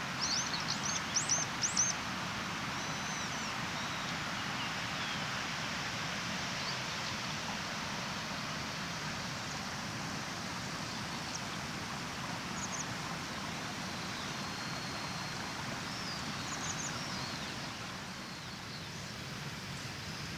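Steady rush of a clear mountain river, with small birds chirping over it: a quick run of calls in the first two seconds and a few brief calls later on.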